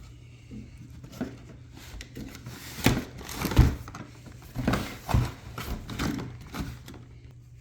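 A digital manifold gauge kit's packaging being opened and handled: a series of short knocks and rustles, over a steady low hum.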